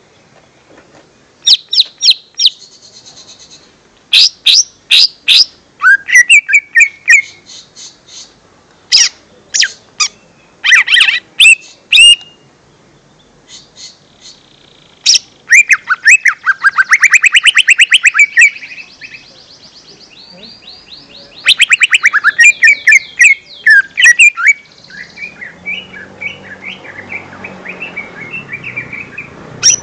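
Cucak ijo mini, a small leafbird, singing and calling: clusters of sharp, quick chips, short warbled trills and brief buzzy notes. A fast rattling trill comes about halfway through.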